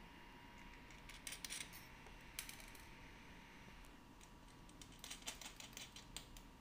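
Light clicks and ticks of small hardware being handled while fitting the seat to a tricycle frame: a quick cluster about a second in, a single tap a little later, and a run of rapid clicks near the end.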